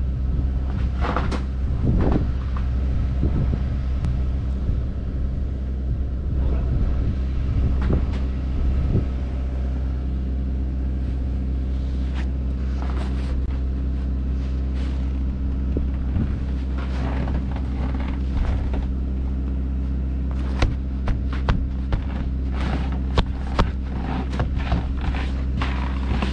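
Kubota KX121-3 mini excavator's diesel engine running steadily while it holds a timber rafter up on its jib boom. A few sharp knocks come in the last several seconds.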